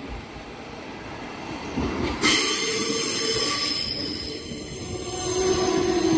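Regional electric multiple-unit train rolling into the station. About two seconds in, a loud high-pitched squeal of wheels and brakes sets in and keeps going. Near the end a steady lower tone comes up under it.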